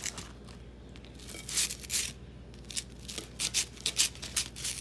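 A fork cutting through a fried, beer-battered fish fillet on a paper towel, with the paper towel rustling: a run of short scraping and rustling strokes, more frequent in the second half.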